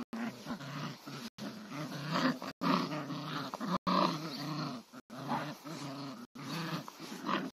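Border Collie x Belgian Malinois puppies growling in play as they bite and tug at a person's shoe and jeans leg, with a string of repeated low growls. The sound cuts out briefly about once a second.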